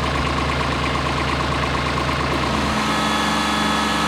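Tractor engine running steadily as it starts pushing a jacked-up shed rolling on pipes; its note changes about two-thirds of the way through.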